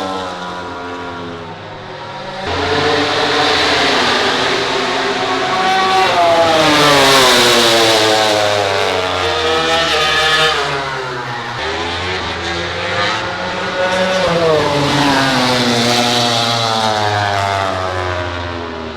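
MotoGP racing motorcycles running hard at high revs as they pass, several in succession. The engine pitch climbs as they accelerate and drops away as each goes by, loudest around the middle.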